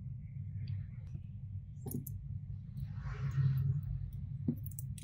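A few sharp clicks and light metal handling noise from a small titanium keychain flashlight being worked in the hands and switched, with a short scratchy rubbing sound near the middle, over a low steady hum.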